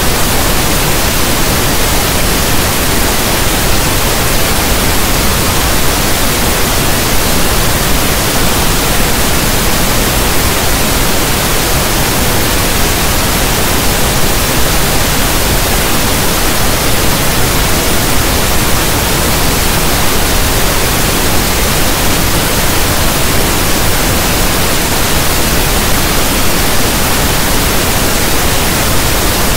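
Steady pink noise: an even, unbroken hiss like static from a radio not tuned to a station.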